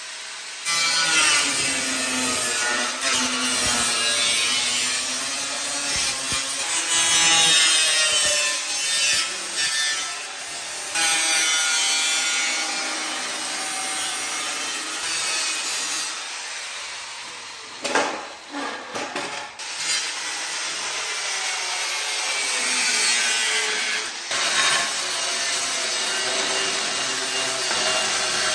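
A power saw cutting through a damaged motorcycle front fender, the motor's pitch rising and falling as the blade bites. The cutting breaks off briefly with a few knocks about eighteen seconds in, then carries on.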